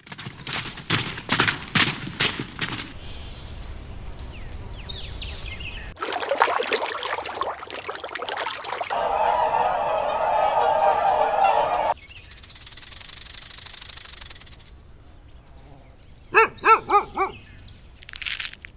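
A string of short, unrelated animal-sound clips, each about three seconds long, cutting abruptly from one to the next; a quick series of repeated pulsed calls comes near the end.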